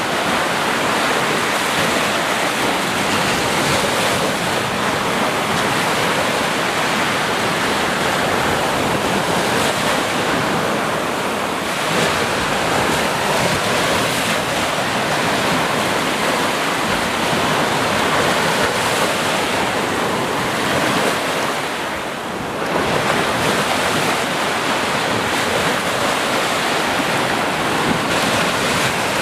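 Ocean surf: waves breaking and washing in a steady roar of water, with a brief lull about two-thirds of the way through.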